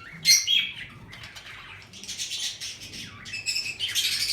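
Lovebirds chirping, a flock of short, shrill calls. Loudest just after the start and again near the end.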